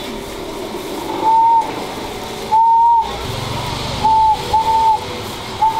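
Five short, steady, high beep tones, each under half a second, over low market background; the background cuts out around the beeps, as it does when speech is bleeped out.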